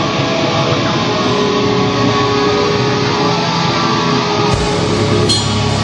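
Hardcore band playing live: loud distorted electric guitar, with a deep low end coming in about four and a half seconds in and a sharp hit soon after.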